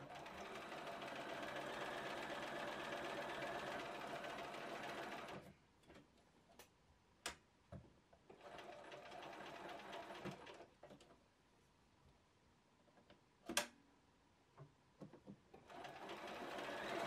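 Bernina 1230 sewing machine stitching through fabric, running quietly and evenly in three runs: about five seconds at the start, a shorter run in the middle, and again near the end. In the pauses between runs come a few sharp clicks, the loudest one shortly before the last run starts.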